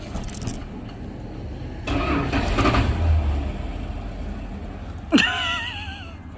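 1976 Dodge D200 pickup's V8 engine running with a steady low rumble, swelling louder for about a second near the middle. About five seconds in, a sharp knock is followed by a short wavering whine.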